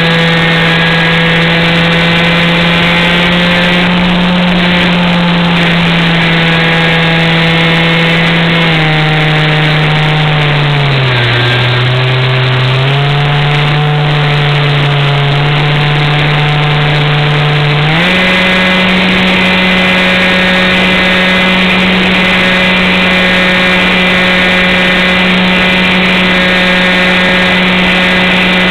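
Radio-controlled model airplane's motor and propeller, heard close up from an onboard camera, running steadily. About nine seconds in the pitch drops as the throttle is eased, dips lower for a couple of seconds, then steps sharply back up about eighteen seconds in and holds steady at full power.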